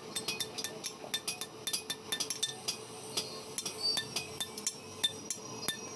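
Hammer blows on red-hot iron lying on a steel anvil while heading a large iron nail: many quick, irregular metallic clinks with a ringing edge.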